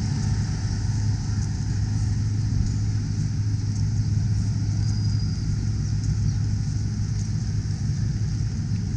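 Road traffic: a steady low rumble of passing cars and motorcycle-type engines.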